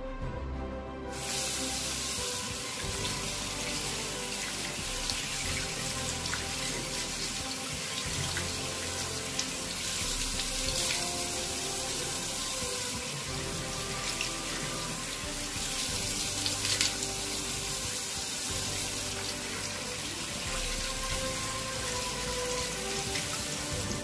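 Tap water running steadily from a bathroom faucet into a ceramic washbasin, turned on about a second in. Near the end a hand is held under the stream.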